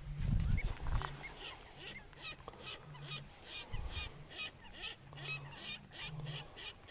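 Waterfowl calling across open water: a steady run of short, repeated calls, about two or three a second, with a few lower honking notes underneath.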